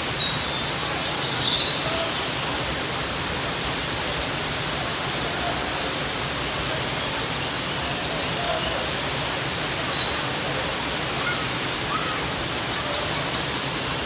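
Looking Glass Falls pouring over its rock ledge, making a steady, even rush of falling water. A bird chirps briefly near the start and again about ten seconds in, high above the water's rush.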